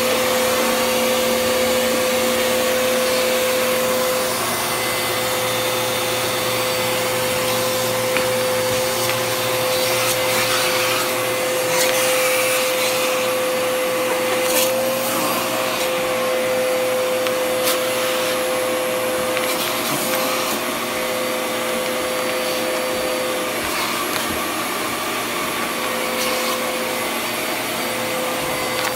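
Vacuum cleaner running steadily, drawing air through its hose wand, with a steady whine over the rush of suction.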